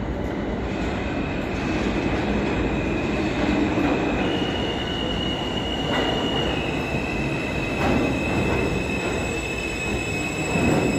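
R160 subway train pulling into the station, its wheels squealing with a high, steady tone over the rumble of the cars. The squeal jumps higher about four seconds in and settles a little lower a couple of seconds later.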